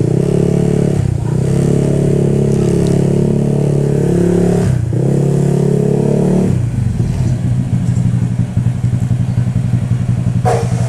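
Motorcycle engine running with a steady drone that dips briefly twice. About two-thirds of the way through it drops to a lower, pulsing beat.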